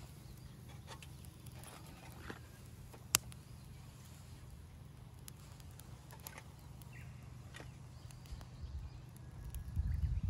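Small twig fire crackling, with scattered ticks and one sharp pop about three seconds in, over a steady low rumble. Near the end a low rumble swells up.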